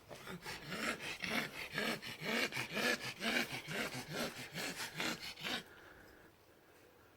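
A hand tool worked back and forth on metal, with rasping strokes about three a second that stop about five and a half seconds in.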